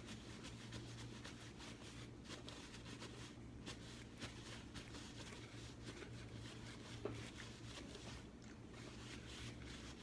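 Faint, irregular rustling and crinkling of a paper napkin handled in the hands, over a steady low hum.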